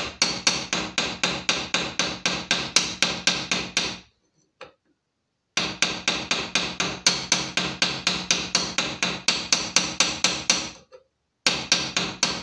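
Small hammer tapping fast and lightly, about five strokes a second, peening over an iron rivet to fix the spring of a hand-forged lock. Each tap rings a little. The tapping comes in three runs, with pauses after about four seconds and again shortly before the end.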